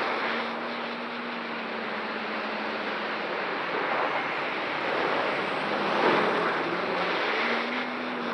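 A 1000mm X-Class racing quadcopter in flight, heard from a camera mounted on the quad: a steady rush of wind and propeller noise from its 13-inch props, with a faint low hum. The rush swells louder around four and six seconds in.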